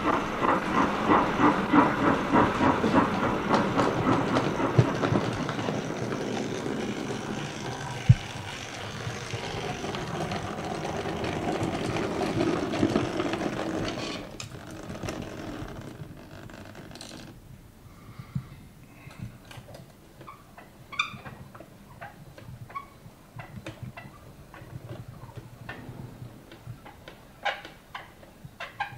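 An O gauge model tank locomotive and coal wagon running along the track, a rhythmic clatter for about the first fourteen seconds. Then it goes quieter, with scattered sharp clicks.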